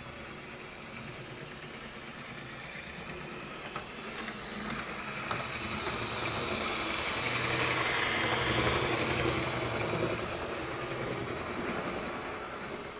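A model train running past on its track, the motor's whir and wheels on the rails growing louder to a peak about eight seconds in, then fading away.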